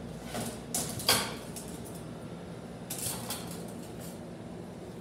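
Loose metal transmission parts clattering and clinking as they are rummaged through by hand, with a sharper clank about a second in and another bout of rattling about three seconds in.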